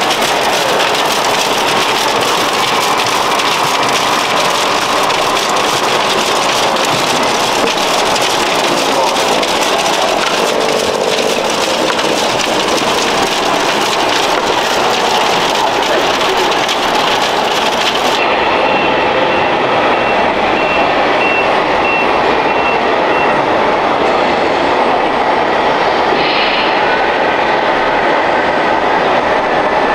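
Steady noise of RC construction models and a crowded exhibition hall, with a hiss like trickling gravel. About two-thirds of the way through, the sound turns abruptly duller.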